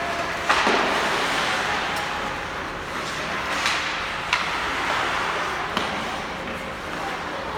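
Ice hockey play: a steady hiss of skates scraping the ice, with several sharp clacks of sticks and puck spread through it.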